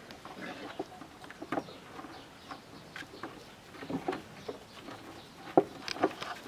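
Scattered short animal calls and light knocks, with a sharp knock a little over five seconds in and another just after as a Border Collie puppy paws at a plastic bowl.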